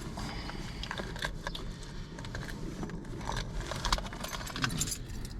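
Scattered light clicks and rustling of trash being picked up and cleared out of a pickup truck's cab.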